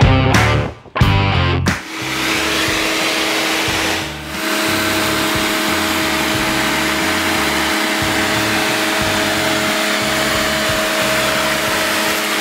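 Konan 1400 W carbon-brush electric pressure washer running, a steady hiss of the water jet with a motor-and-pump hum, starting about two seconds in and dipping briefly a couple of seconds later. Rock music plays underneath and alone at the start.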